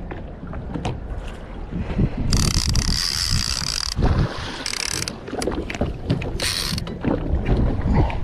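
Conventional fishing reel's drag screaming as a hooked fish pulls line off: one long run about two seconds in, then two short bursts. Wind buffets the microphone underneath.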